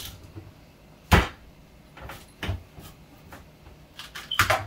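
A kitchen knife chopping through a cassava root onto a wooden cutting board: irregular sharp knocks, the loudest about a second in, fainter ones after it, and a quick cluster of chops near the end.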